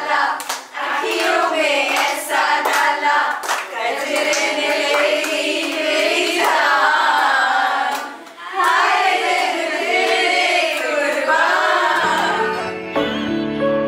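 A group of women singing together with hands clapping along. About twelve seconds in, the singing gives way to music with steady held notes.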